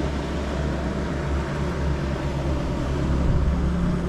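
Boat engine running steadily at low revs, a low drone, with wind and sea noise around it.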